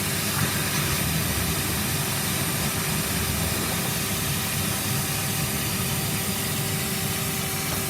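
Vacuum cleaner motor running steadily, an even rushing hum with a constant tone, while the vacuum picks up sweets.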